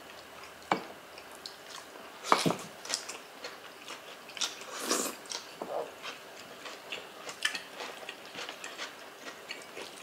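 Close-up eating sounds of people eating oxtail kare-kare and its vegetables by hand: chewing, biting and wet mouth clicks, irregular, with a few louder ones about two and a half and five seconds in.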